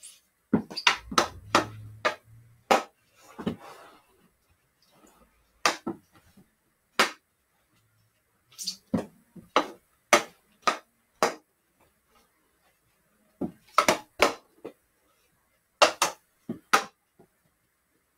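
Hockey stick knocking down a thrown ball and tapping it on the floor: a series of sharp taps in short, irregular clusters of two to six.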